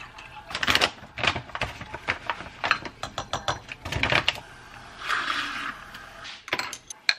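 A run of clicks, taps and clatter as an orange juice jug, its cap and a bag of greens powder are handled over a glass tumbler, then a handheld milk frother whirs for about a second, about five seconds in, mixing the greens powder into the juice.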